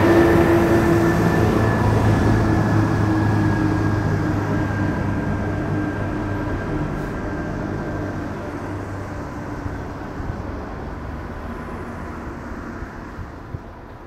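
A passing train moving away: a rumble with a few thin whining tones, loud at first and fading steadily as it recedes.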